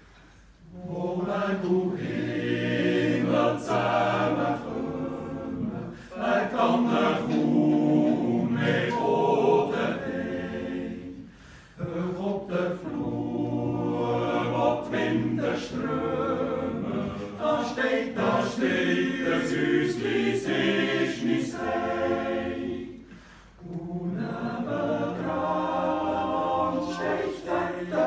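Swiss men's yodel choir singing unaccompanied, in full many-voiced harmony. The song comes in four long phrases with short pauses between them.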